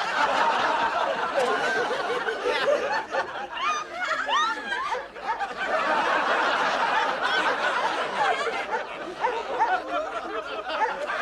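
Sitcom studio audience laughing: a long, dense wave of laughter from many people that swells and eases a little but keeps going.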